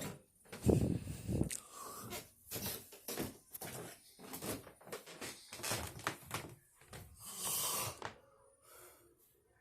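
Loud snoring and snorting breaths from a sleeper, irregular and uneven, mixed with knocks and rustling. A longer hissing breath comes near the end.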